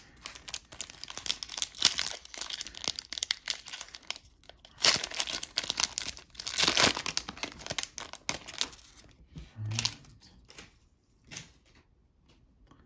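Foil trading card pack wrapper crinkling and tearing open by hand, with the loudest crackling bursts about five and seven seconds in. After that only a few light rustles and clicks as the cards are handled.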